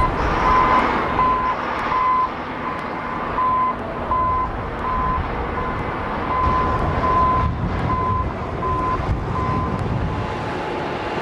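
Vehicle reversing alarm beeping at a single pitch, about once every 0.7 seconds with a short break midway, over a steady low rumble of machinery and traffic.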